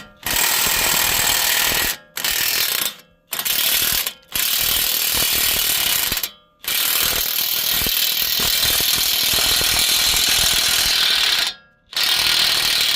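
Impact wrench hammering in repeated bursts, the longest about five seconds, breaking loose and backing off a Toyota's 22 mm CV axle nut.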